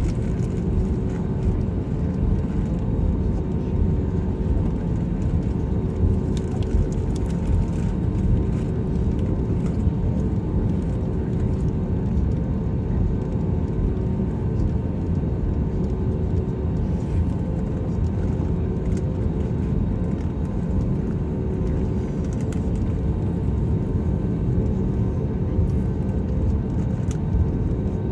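Airbus A320neo cabin noise heard from a window seat over the wing during taxi: a steady low rumble with a couple of steady mid-pitched engine hums.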